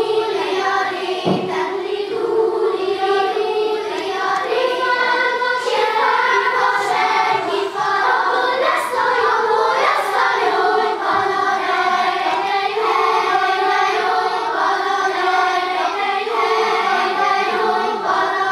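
Children's choir of lower-primary pupils singing a Hungarian choral song, with steady, sustained sung notes.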